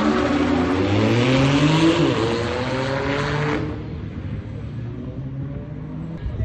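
Car engine pulling hard under full throttle, its pitch rising, dipping briefly at a gear change about two seconds in, then rising again until the throttle is lifted about three and a half seconds in, after which it runs on much quieter.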